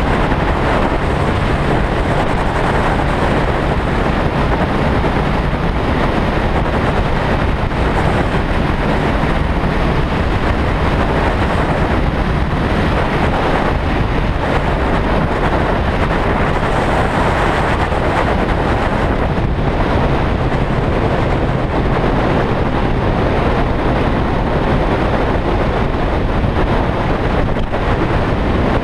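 Sportbike engine running at a steady cruising speed, mixed with heavy wind rushing over the microphone. The engine hum holds an even pitch throughout, with no revving or gear changes.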